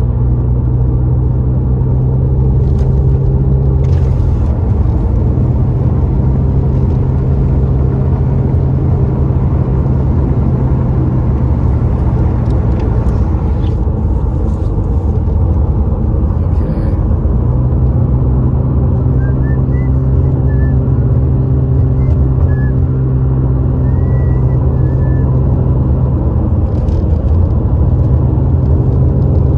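Car's engine and tyre noise heard from inside the cabin while driving at road speed: a steady low drone.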